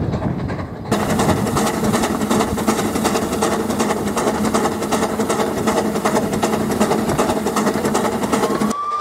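Narrow-gauge steam locomotive running, heard close up from the front of the engine: a loud, dense, fast mechanical chatter from the exhaust and running gear. It begins abruptly about a second in, after the sound of the train passing, and near the end gives way to a steam whistle.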